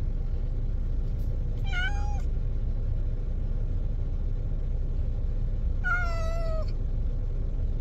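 A domestic cat shut inside a car meowing twice, about two seconds and six seconds in, the second call longer and falling in pitch: the cat is unhappy, crying at being taken along in the car.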